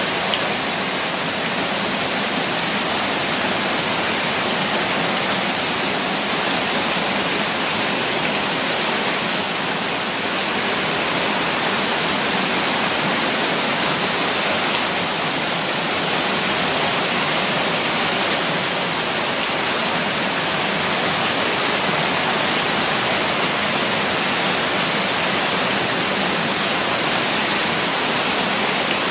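Heavy-rain floodwater pouring down concrete steps and gushing in a steady, loud rush of splashing water, with the downpour itself mixed in.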